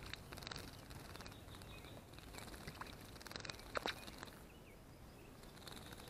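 Orioles bathing in a shallow bird bath, wings flicking water: a faint, irregular patter of splashes and flutters, with one sharper splash a little before four seconds in.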